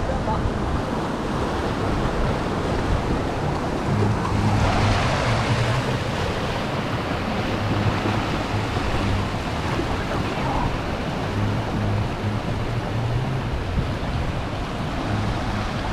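Surf washing in with wind rushing over the microphone, swelling about five seconds in, over a low hum that comes and goes.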